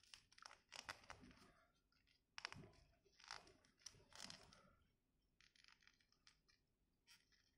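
Faint rustling and light clicks as fingers handle a small plastic action figure and work its head under its cloak's hood: short, irregular scratches, busiest in the middle and thinning toward the end.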